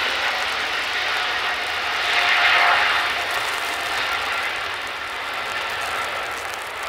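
Boeing 777's twin jet engines at take-off thrust during its roll down a wet runway. A steady rushing roar with a faint whine is loudest about two and a half seconds in, then slowly fades as the jet passes.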